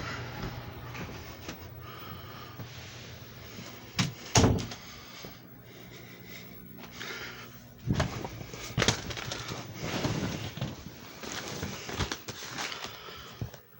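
Handling knocks and clatter: two sharp knocks about four seconds in, the loudest sounds, then a run of smaller knocks and rattles from about eight seconds on, over a steady low hum.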